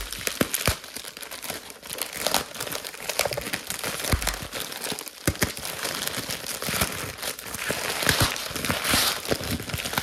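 White plastic bag wrapping being crumpled and pulled apart by hand to unwrap a packed piece: a dense, continuous crinkling with many small crackles, growing somewhat louder late on.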